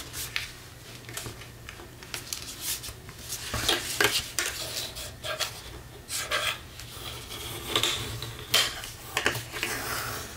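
Bone folder rubbing and scraping along a fold in heavy cardstock, with hands pressing and sliding over the paper, to set a sharp crease. The strokes come irregularly, with a few sharper clicks between them.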